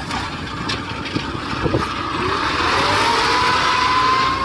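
Engines of a rice combine harvester and a tracked rice-bag transporter running close by. About halfway through, the sound grows louder and a whine rises slowly in pitch as an engine speeds up.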